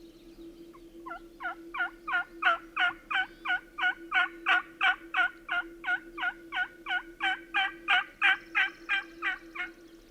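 Turkey yelping: a long, even run of about two dozen loud, sharp yelps at roughly three a second, starting about a second in and stopping shortly before the end. A faint steady hum runs underneath.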